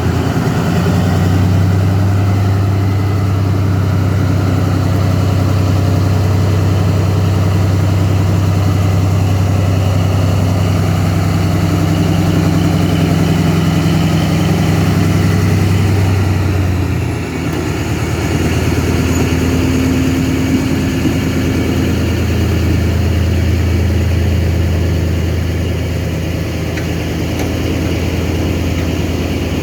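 Diesel engine of Sri Lanka Railways W3-class locomotive 638 running steadily. Its note drops a little with a brief dip in level about two-thirds of the way through, then holds steady again.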